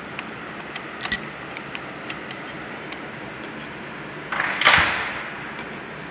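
Small metal clicks and taps as an Allen key and bolts are handled on a lathe cross slide, with one sharper click about a second in and a louder scrape, half a second long, around four and a half seconds in, over a steady background hiss.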